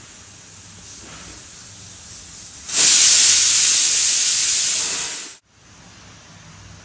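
Stainless-steel pressure cooker venting steam: a loud, steady hiss starts suddenly a little under three seconds in, lasts about two and a half seconds and cuts off abruptly.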